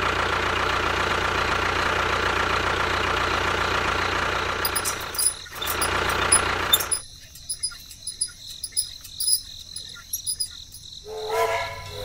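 A small motor on a miniature DIY tractor or bulldozer running steadily. About seven seconds in the sound cuts away to much quieter scattered clicks and taps.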